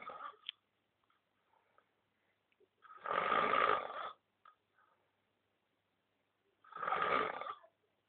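Snoring: a snore trails off at the start, then two long snores come about three and a half seconds apart. Each lasts about a second and has a steady whistling note running through it.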